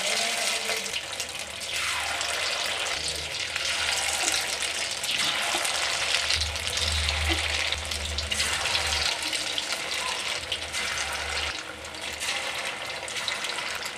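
Hot oil sizzling and bubbling steadily in a kadai as battered chicken pakoras deep-fry.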